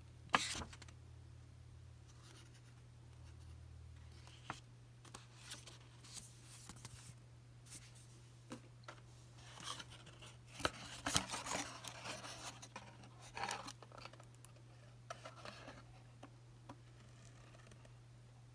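Paper and cardboard packaging being handled: an instruction booklet and a toy's window box rustling, scraping and clicking in scattered short bursts, with a sharp click near the start and the busiest handling in the middle.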